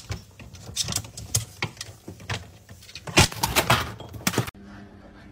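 Clattering and knocking of refrigerator shelves and packages, with rustling, as a cat is handled and pulled out of a fridge; the clatter is densest near the end and stops abruptly, leaving a quiet low hum.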